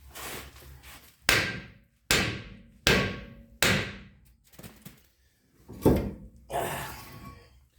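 A hammer striking metal: four sharp blows a little under a second apart, each ringing briefly, then a pause and two more strikes near the end.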